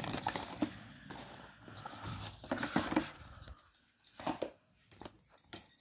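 Rustling and handling of the phone's box and its accessories as they are set aside, followed in the second half by a few separate sharp clicks or taps.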